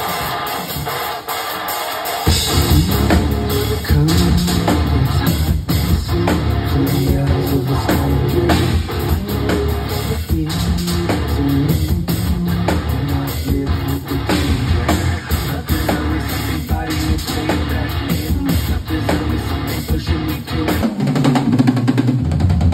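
Rock drum kit played hard along with guitar and bass, with dense hits on the drums and cymbals; the heavy bass and low guitar come in about two seconds in.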